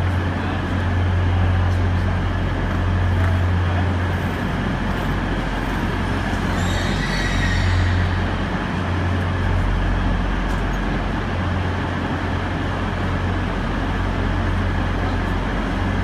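Railway station platform ambience under a train shed: a steady low hum and rumble from trains standing at the platforms, mixed with general noise. A brief high-pitched sound rises about seven seconds in.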